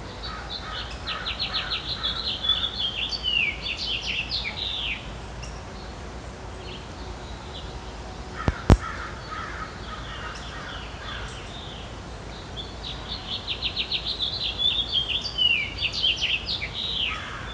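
A bird singing two long phrases of fast, high trills and twitters, the second about twelve seconds after the first, with one sharp click between them.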